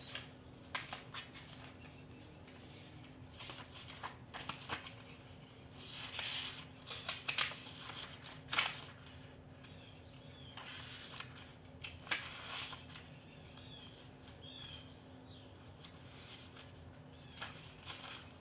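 A deck of tarot or oracle cards being shuffled and handled, in irregular bursts of riffling and soft clicks, over a steady low electrical hum.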